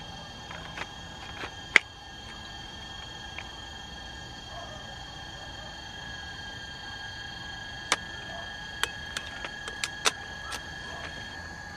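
Insects chirring in steady high-pitched tones, with a few sharp clicks scattered through, the loudest about two seconds in and a cluster of them near the end.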